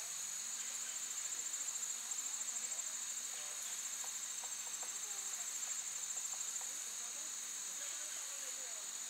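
Steady high-pitched chorus of insects, trilling in rapid pulses.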